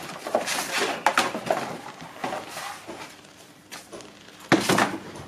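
Stiff dried hide and a paper template rustling and scraping as they are handled and shifted on a tiled floor, in irregular bursts, with a sharper rustle about four and a half seconds in.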